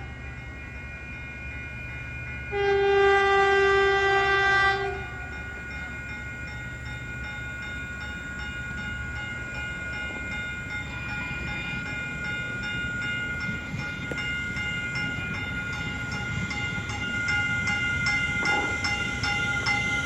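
Caltrain commuter train arriving at a grade crossing: the locomotive horn sounds one long blast about two and a half seconds in. Under it a steady ringing continues throughout, and the train's rumble grows toward the end as it comes through.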